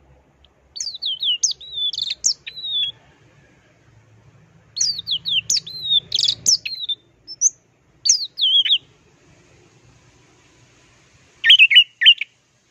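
Orange-headed thrush (anis merah) singing: phrases of quick, high whistled notes sliding up and down, each a second or two long with pauses between, the last one near the end.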